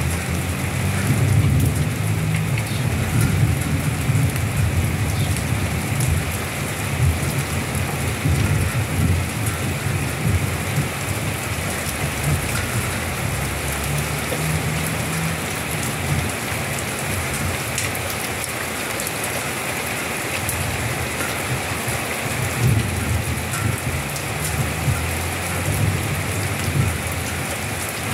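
Steady rain falling, an even hiss, with a low uneven rumble underneath.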